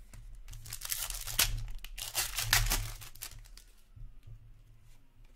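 Foil hockey card pack crinkling and tearing as it is ripped open by hand. The noise is loudest in two bursts in the first three seconds, then dies down to light rustling as the cards come out.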